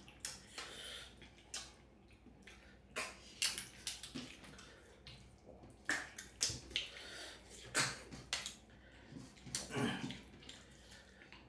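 Freshwater snails in curry being sucked out of their shells by mouth: sharp wet sucking clicks and slurps at irregular intervals, about one every second or two.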